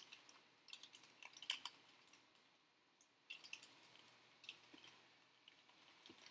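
Faint crinkling and crackling of a clear plastic bag of taped resistors being handled, in two spells of crisp crackles with a short lull between.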